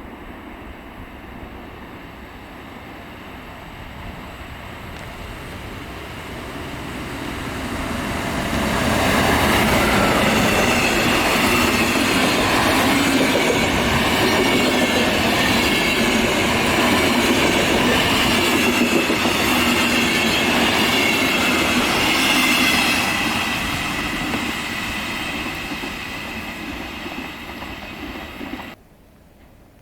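Electric-locomotive-hauled passenger train passing through a station at speed. It approaches, runs loud for about fourteen seconds with a pitched whine over the rolling noise, then fades. The sound cuts off abruptly near the end.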